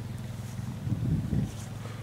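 Distant Honda quad bike engine running steadily as it tows a weed licker, a low hum, with wind rumbling on the microphone.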